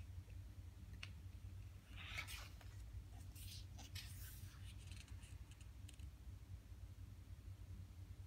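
A page of a glossy photo book being turned by hand: faint paper rustles and light clicks, strongest about two seconds in and again from about three to four and a half seconds, over a steady low hum.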